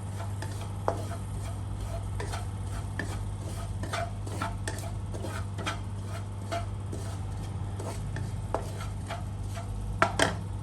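Electric multi-functional grinder running with a steady low hum while flax seeds tick and rattle against the inside of its stainless cup, with a few sharper clicks near the end.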